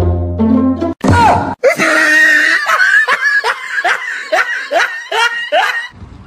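About a second of music, then laughter: a string of short falling 'ha' sounds, about two a second, lasting several seconds.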